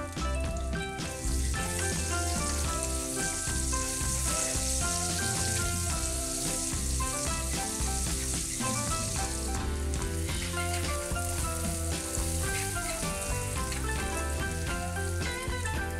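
Sliced onions sizzling as they fry in hot oil in a wok, stirred with a spatula; the sizzle starts about a second in. Instrumental background music plays along.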